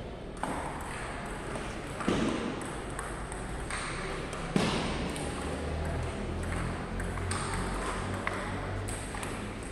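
Table tennis balls clicking off paddles and tables, an irregular patter of pocks from several games at once, with a couple of louder knocks.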